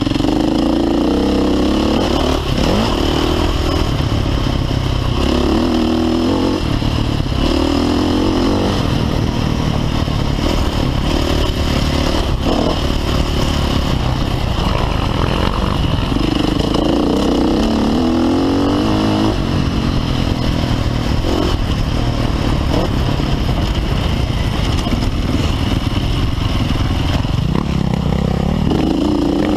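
Dirt bike engine being ridden hard off-road, its pitch climbing and dropping again and again as the rider works the throttle through the gears.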